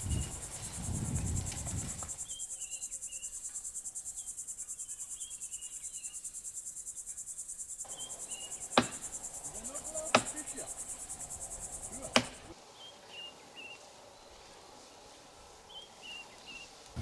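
Insects shrilling steadily in a fast pulsing rhythm, with short repeated bird-like chirps. Three sharp knocks come about 9, 10 and 12 seconds in, and the insect shrill cuts off suddenly soon after the third.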